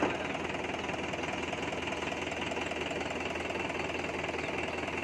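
Tractor engine running steadily with a fast, even knocking beat.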